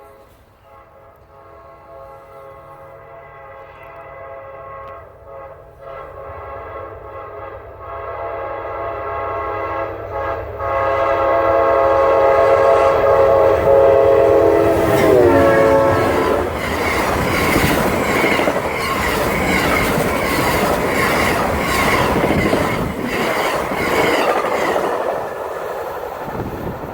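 Amtrak passenger train's locomotive horn sounding in a series of blasts with short breaks, growing louder as it approaches, its pitch dropping as the locomotive passes about 15 seconds in. The train then rolls by with its wheels clattering over the rail joints.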